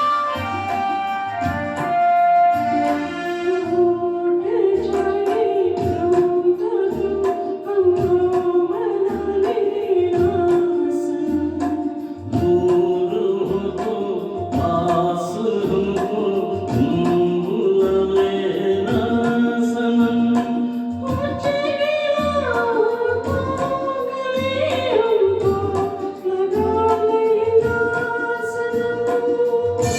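Music: a melody sung without clear words over an electronic keyboard accompaniment with a steady, repeating bass line, in the style of a Hindi film song.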